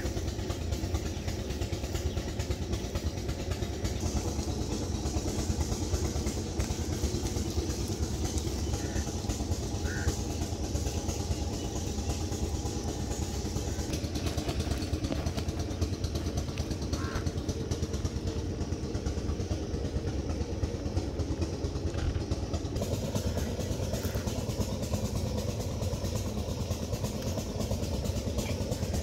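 A steady, low, engine-like mechanical drone running without a break.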